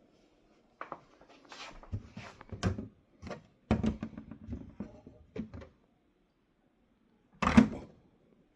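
Handling noises: a run of knocks, clicks and rustles as objects are picked up and set down, then one louder thump about seven and a half seconds in.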